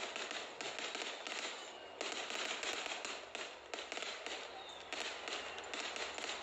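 Aerial fireworks bursting overhead in a dense, continuous crackle of many sharp pops.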